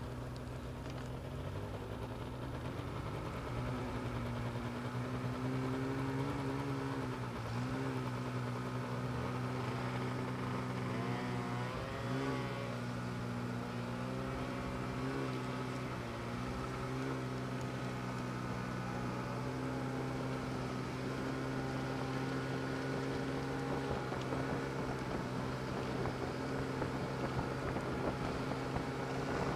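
Snowmobile engine running under way, its pitch climbing over the first few seconds, then dipping briefly several times as the throttle changes before holding steady.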